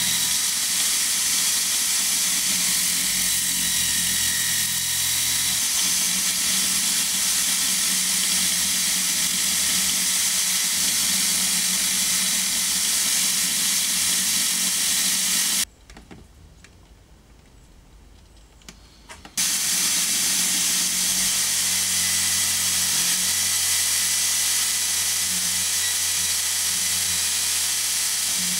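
Power drill clamped in a bench vise running steadily, spinning an abrasive disc with a hiss as a knife's wooden handle and steel blade are sanded and polished against it. The sound drops away for about three and a half seconds past the middle, then the drill is heard running again.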